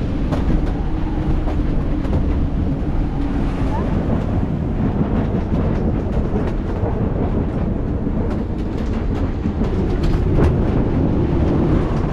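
Gale-force wind on a sailing yacht in heavy seas: a loud, steady rumble of wind over the microphone, with frequent knocks and rattles throughout.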